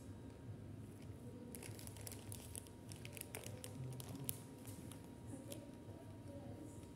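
A cluster of faint crinkling, crackling clicks through the middle, the sharpest a little after four seconds, over quiet room tone with a low steady hum.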